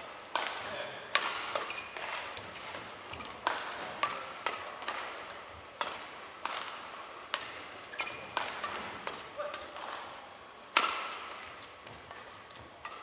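Badminton rackets striking a shuttlecock in a fast doubles rally: a string of sharp hits, roughly one to two a second, each with a short echo, and short squeaks of shoes on the court between them. The loudest hit comes near the end.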